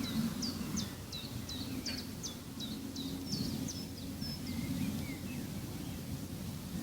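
A small songbird singing a rapid run of short, high chirps, about three a second, for the first four seconds, with a few fainter, lower chirps a little later. A steady low rumble lies underneath.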